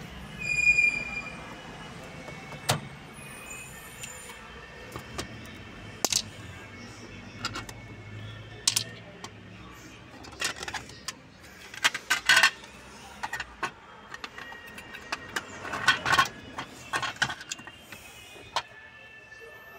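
Hard plastic clicks, snaps and rattles as the Honda Civic's overhead dome light housing and its clear lens are handled and unclipped, coming in irregular clusters. A short electronic chime sounds about half a second in, with faint music underneath.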